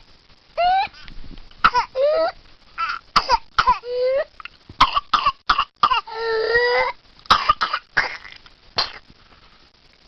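A child with whooping cough (pertussis) in a coughing fit: quick runs of short, sharp coughs broken by high-pitched whooping breaths drawn in, each rising in pitch, with a longer held whoop about six seconds in. The whoop is the gasp for air that follows the coughing fit.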